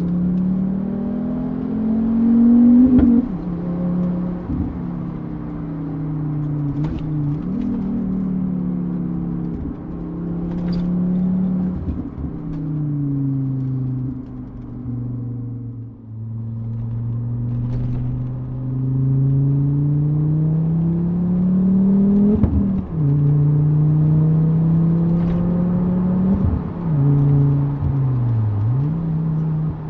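A Volvo V70R's turbocharged 2.5-litre five-cylinder engine accelerating through the gears of its six-speed manual. Engine pitch climbs and drops sharply at each change, about three times, with a spell of low revs near the middle before it builds again.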